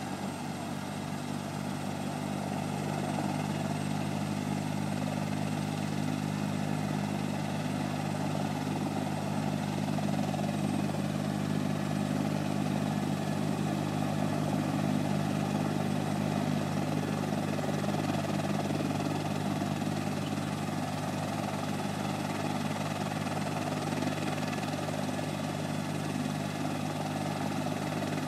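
Rescue helicopter running steadily, a constant low hum of engine and rotor that grows a little louder over the first few seconds.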